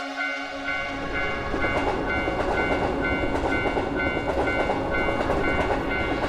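Railroad crossing bell ringing in a steady two-tone clang, a few strikes a second. From about half a second in, a passing train's rushing rail noise builds up underneath it.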